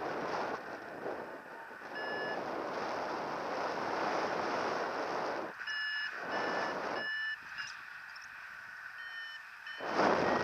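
Paragliding variometer beeping in short, evenly spaced tones, about two a second, in several runs, the later beeps a little higher: the vario's climb tone, signalling that the glider is rising in lift. Wind rushes over the microphone at the same time, loudest in gusts.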